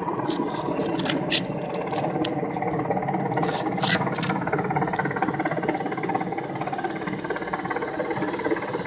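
Low-flying military helicopter's rotor and engine noise, a steady dense drone. Scattered sharp clicks come through in the first half.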